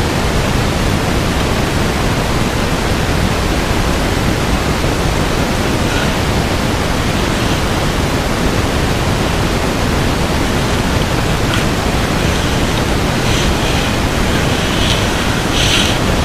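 Steady, loud rushing hiss, even across all pitches, with a few faint small clicks near the end.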